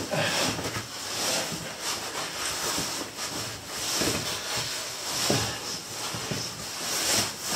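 A caver's boots and clothing scraping and scuffing against rock as he wriggles through a tight crawlway, in irregular scrapes over a steady hiss.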